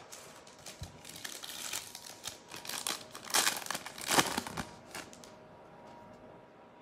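Foil wrapper of a basketball trading card pack crinkling as it is torn open and handled: a run of crackly rustles, loudest in the middle, dying away near the end.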